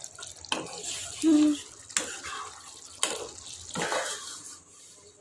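Water splashing and sloshing in the kitchen, with a few sharp knocks of utensils or dishes spread through it. A brief low hum-like tone sounds about a second in.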